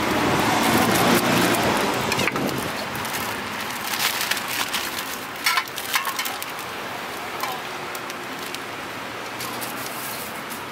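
Thin plastic bag rustling and crinkling as cut watermelon pieces are tipped into it from a stainless steel scoop, with a few sharp clicks and taps about four and six seconds in.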